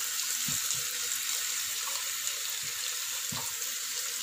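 Steady sizzling hiss of basmati rice and whole spices frying in hot ghee in an aluminium pressure cooker, with a few faint soft knocks.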